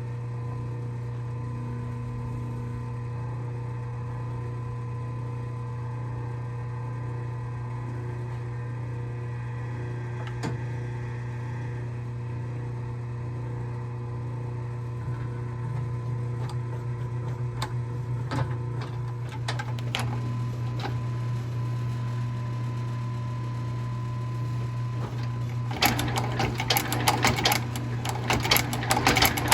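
Blake stitch machine sewing a new sole onto a shoe: a steady low hum with a few scattered clicks, then near the end a fast, loud run of stitching clatter as the machine drives stitches through the sole.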